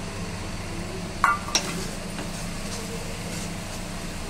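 Metal spatula stirring and scraping mashed snake gourd in a kadai, with two sharp clinks of the spatula against the pan a little over a second in. A steady low hum runs underneath.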